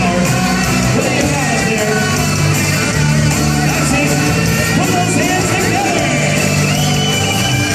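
Loud upbeat rock-style music with singing, playing steadily.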